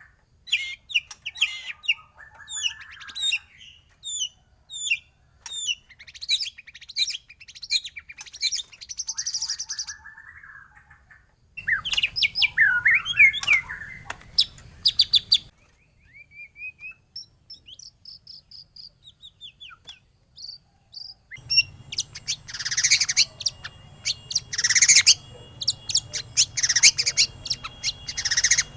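White-rumped shama (murai batu) song: a varied run of loud whistles, trills and rapid chip notes. The background changes abruptly a few times, as where separate recordings are spliced together.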